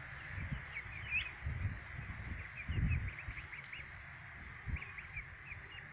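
Small birds chirping in quick, thin calls over a steady hiss, with gusts of wind rumbling on the microphone, strongest about three seconds in.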